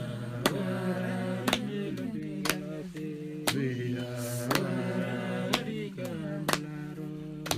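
Background music: sustained held tones that slide in pitch, over a sharp regular beat about once a second.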